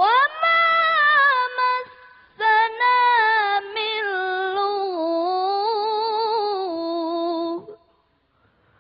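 A young woman reciting the Quran in melodic tajwid chant, holding long wavering notes in two drawn-out phrases with a short breath about two seconds in. Her voice stops shortly before the end.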